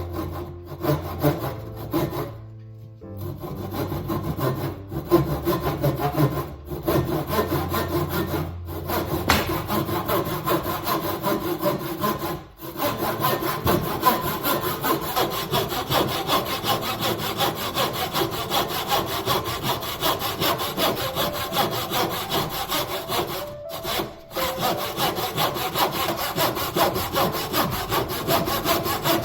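A saw cutting through wood in steady continuous strokes, stopping briefly a few times, most clearly about twelve seconds in and again near twenty-four seconds.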